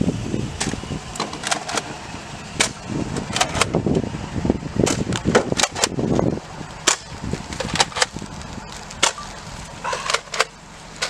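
Nerf blaster firing over and over, an irregular run of sharp clicks and snaps about one or two a second, over the rumble of a moving car and wind.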